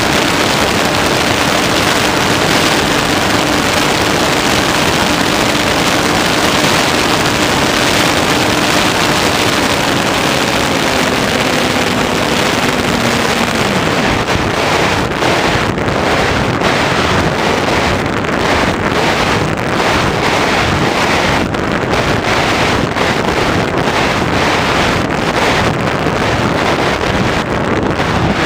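Wind rushing over an Easy Glider Pro RC glider's onboard microphone, with the faint hum of its electric motor and propeller. About halfway through the hum falls in pitch and stops as the motor is cut and the propeller winds down, leaving gusty wind noise from the glide.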